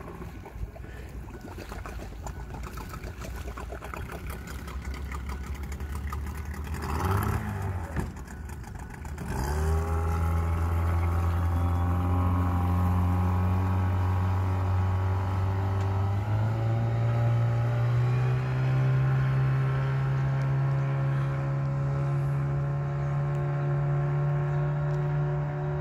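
Boat engine idling at first. About a third of the way in it is throttled up to a louder, steady speed, then steps up a little higher just past halfway and holds there.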